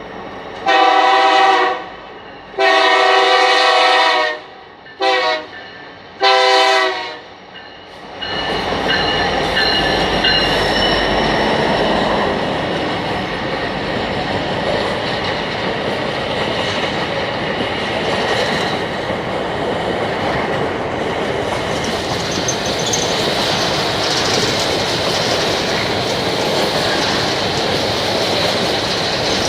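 Freight locomotive horn sounding four blasts, long, long, short, long, the grade-crossing pattern. The freight train then runs past with a steady rumble and the clatter of its wheels on the rails.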